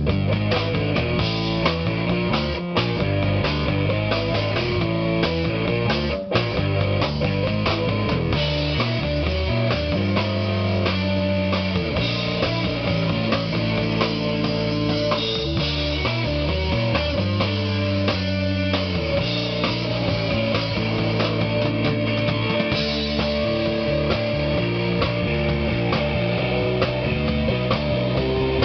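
A rock band playing: guitar, bass and drum kit, with a bass line that keeps changing notes.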